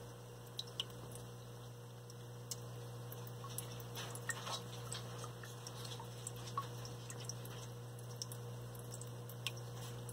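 Steady low electrical hum of a small water-filter pump in a terrarium's water, with scattered faint ticks and drips of water.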